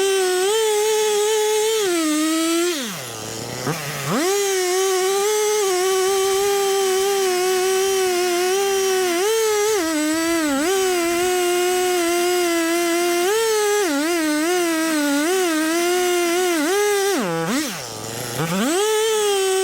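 Two-stroke Stihl chainsaw running at full throttle while cutting into a big tree trunk, its pitch sagging and recovering as the chain bites. The throttle is let off twice, about three seconds in and near the end, the revs dropping sharply and climbing back.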